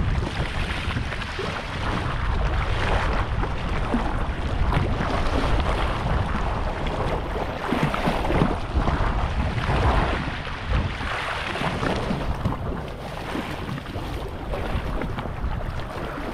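Wind buffeting the microphone over small waves washing and sloshing across a shallow rock shelf, a continuous rough rush that gusts up and down.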